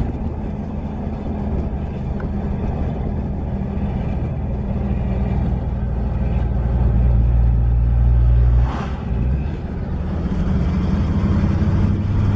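Engine drone and road noise of a moving Toyota, heard from inside the cabin. It grows louder, drops away suddenly about nine seconds in, then picks up again.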